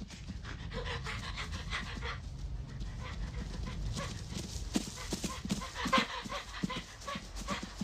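A brown bear and a cougar running, with panting and quick, irregular footfalls that come thicker from about four seconds in.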